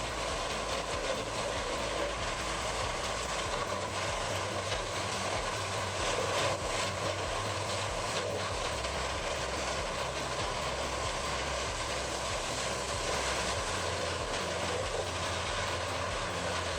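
Vermeer TG7000 tub grinder running at work, a steady, continuous machine drone with no breaks.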